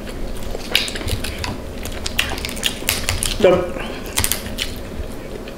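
Eating sounds from a seafood boil: a run of irregular sharp clicks and cracks, like crab shell being broken and chewed, with a short hum about three and a half seconds in.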